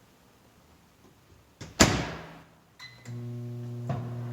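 Over-the-range microwave: a sharp knock about two seconds in, then a short beep and a steady low electrical hum that starts near the end as the unit switches on.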